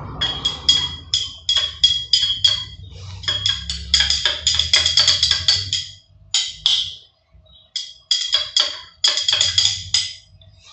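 Glass stirring rod clinking rapidly against the inside of a small glass beaker while stirring shampoo into water, in quick runs of ringing taps with a short pause about six seconds in.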